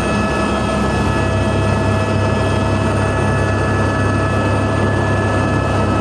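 Helicopter heard from on board: a steady low rotor and engine drone with a constant high turbine whine over it.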